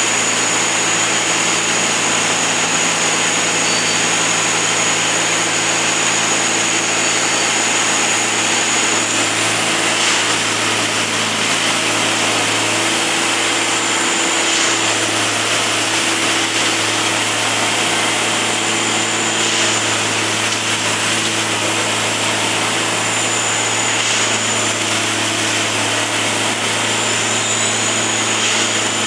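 Plasser & Theurer 09-3X Dynamic Tamping Express track machine working along the track: a steady diesel engine and hydraulic drone with a high whine that dips briefly every four to five seconds.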